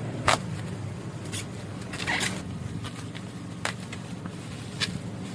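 Box packaging being opened by hand: a few sharp clicks and a short scraping rustle about two seconds in, over a steady low hum.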